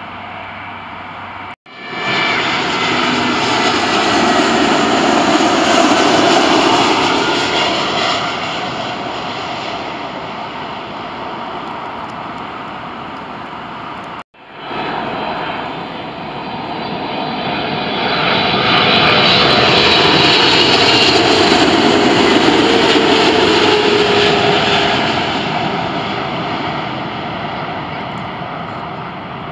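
Jet airliners on final approach passing low overhead with landing gear down. The engine noise swells to a peak and fades away twice, each pass cut off abruptly, and the second carries a slowly falling whine.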